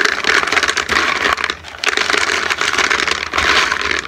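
Expanded clay pebbles (LECA) poured from a black plastic pot into a plastic planter, a dense rattling clatter of many small knocks as they tumble in for the drainage layer, with a brief pause about a second and a half in.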